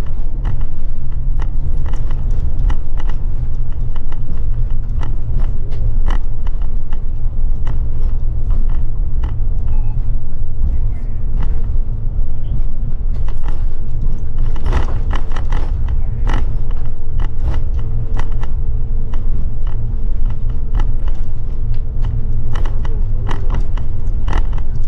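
Express coach under way, heard from inside the cabin: a steady, heavy low rumble of engine and road, with frequent clicks and rattles throughout and a faint steady whine for several seconds past the middle.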